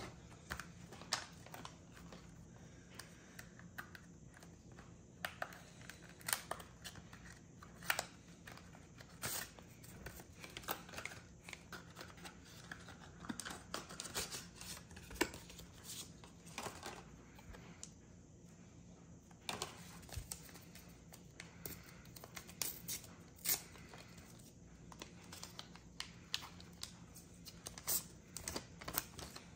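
Rustling, crinkling and tearing of packaging as a Pokémon trading card pack is pulled from a Happy Meal box and torn open, with light clicks of the cards being handled. The sounds come in many short, irregular crackles and ticks.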